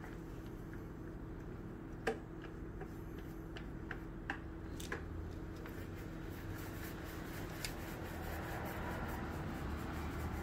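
Paint roller rolling thick primer over a wooden cabinet top: a soft, sticky rolling noise over a steady low hum, with a few light clicks.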